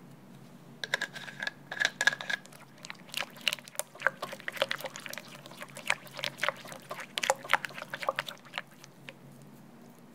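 Spatula stirring thick custard cream, making a quick, irregular run of wet squelching and smacking clicks that starts about a second in and stops near the end.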